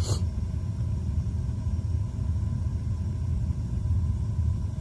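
Triple-burner propane gas forge running with a steady low rumble from its burners, with one brief sharp sound at the very start. The owner doesn't like how it sounds and listens for popping from the burners.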